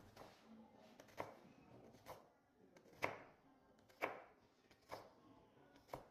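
Kitchen knife slicing a red onion on a plastic cutting board: about six cuts, roughly one a second, each ending in a sharp tap of the blade on the board.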